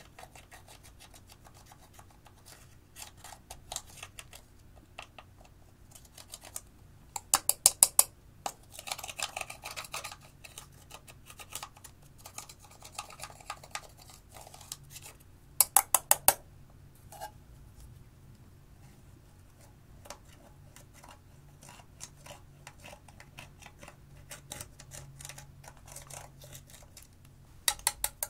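Pressed eyeshadow powder being scraped and picked out of a plastic palette pan with a thin pointed tool, giving dry scratching and crumbling with light clicks. Three times, a quick run of five or six sharp taps stands out as the loudest sound.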